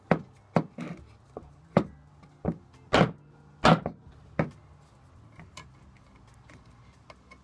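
A hammer tapping a soft plywood block set on top of a hickory draw-knife handle, driving the handle down onto the tang until its end pokes through: about nine sharp knocks over the first four and a half seconds, the hardest two near the middle. Then the taps stop and only faint handling clicks remain.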